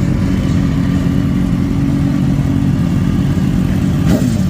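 Motorcycle engine running steadily, with a quick rev of the throttle about four seconds in.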